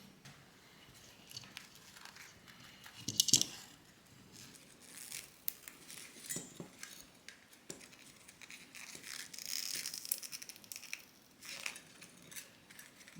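Quiet handling noises: scattered small clicks and taps with rustling and crinkling, a brief louder rustle about three seconds in, and a longer hissing rustle around ten seconds in.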